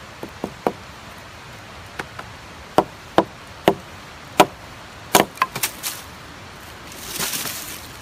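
Hatchet chopping a stick of wood held upright on a log: about a dozen sharp, uneven chops, coming quicker around five seconds in, followed near the end by a brief rustle.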